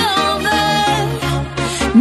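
Electronic dance-pop music, an instrumental stretch of the song with sustained synth tones over bass.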